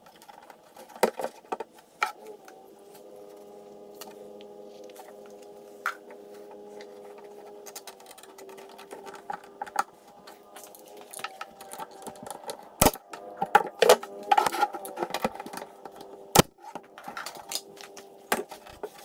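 Quick-grip bar clamps and pine boards being handled: scattered clicks and knocks over a steady motor hum, with two sharp bangs about three and a half seconds apart in the second half.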